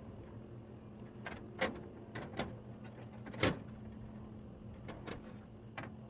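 Scattered sharp clicks and light metallic taps from handling CHANNELLOCK 968 long-nose wire strippers, the loudest about three and a half seconds in, over a steady low hum.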